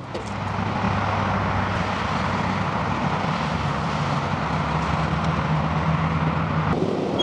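Steady car engine and road noise with a low hum, changing abruptly near the end.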